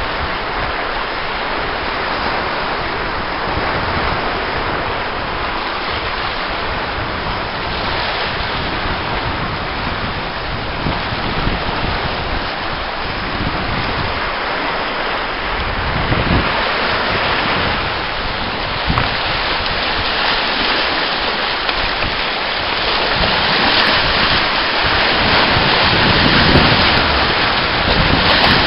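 Choppy sea washing and breaking against a rocky shore, with wind buffeting the microphone; the surf grows louder near the end.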